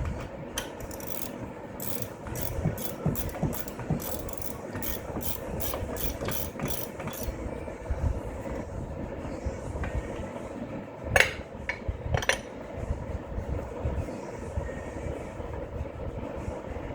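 Hand tool working on metal engine parts: a run of quick sharp clicks, about three a second, for several seconds, then two louder metallic clanks about a second apart.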